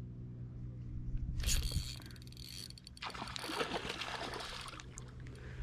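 Water splashing and sloshing in two stretches, over a steady low hum.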